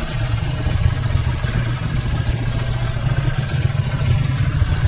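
Boat motor running steadily with a loud, even low drone.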